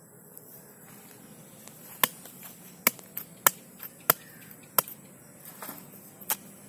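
Knife blade chopping into the hard husk of a ripe cacao pod: a series of about six sharp knocks, irregular and less than a second apart, starting about two seconds in.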